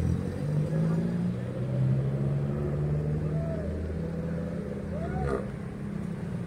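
Street traffic: a nearby motor vehicle's engine runs steadily and drops away about five seconds in.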